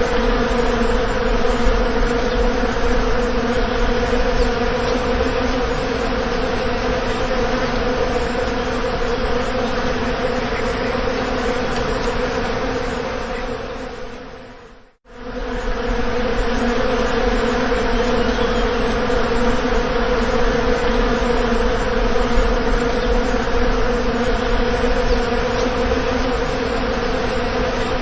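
Bees buzzing in a loud, steady drone. The buzz fades out about halfway through, is silent for a moment, then fades back in.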